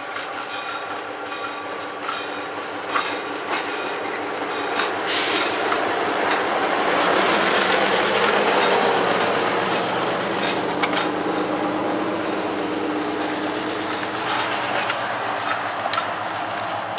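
Fairbanks-Morse H-12-44 switch locomotive's six-cylinder opposed-piston diesel engine running as the locomotive rolls past, loudest about halfway through and then fading as it moves away. Its wheels click now and then over the rail joints.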